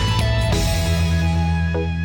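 Background music with guitar and steady low bass notes.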